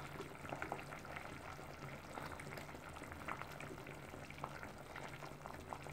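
Pot of vegetable soup simmering: faint bubbling with small, irregular pops.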